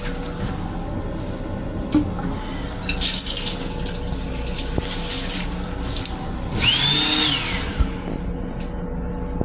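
Restroom sink faucet in an M7 railcar running a thin stream into the basin for a few seconds, over a steady low rumble and hum from the car. About seven seconds in comes a short, louder rush with a whistling tone that rises and then falls.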